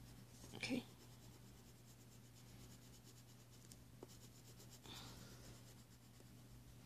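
Faint scratching of a wax crayon rubbed back and forth on paper, colouring in a letter.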